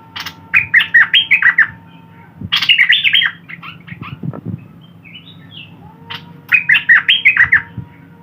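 A pet songbird (the bird Thai keepers call nok dok taeng) singing three loud bursts of rapid, warbling notes with short pauses between, over a faint steady hum.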